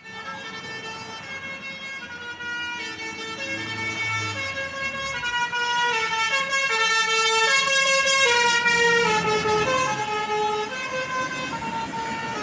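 Bus telolet horn playing a melody: several horn tones sounding together and stepping from note to note, loudest in the middle.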